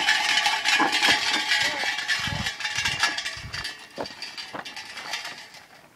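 Cowbells on a team of Milking Shorthorn oxen clanking and ringing as the oxen pull a cart, fading steadily away. Three dull low thuds come around the middle.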